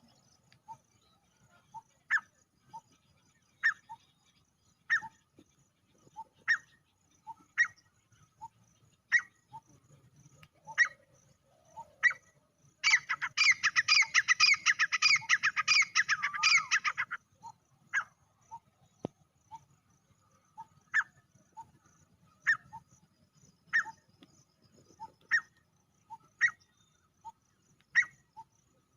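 Male grey francolin calling: short sharp notes repeated about every second and a half, with a loud run of rapid notes lasting about four seconds near the middle.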